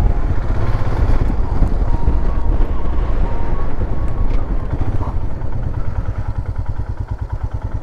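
Royal Enfield Himalayan's 411 cc single-cylinder engine running, its firing pulses heard as a steady, fast beat; it eases off in the last couple of seconds.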